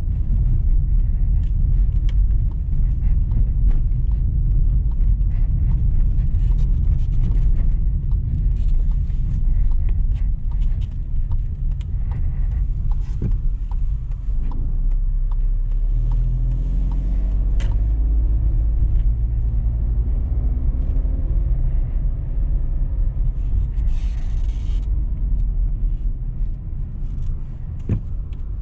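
Low in-cabin rumble of a Volkswagen T-Cross 200 TSI's 1.0-litre turbo three-cylinder engine and road noise while driving slowly, with the engine's hum rising and falling about halfway through as the car pulls away and eases off. A brief hiss comes near the end.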